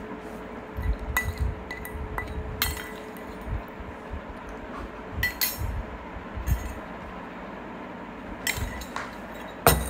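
A steel spoon clinking and scraping against a small stainless steel bowl in scattered short strokes, some ringing briefly. A louder knock comes near the end.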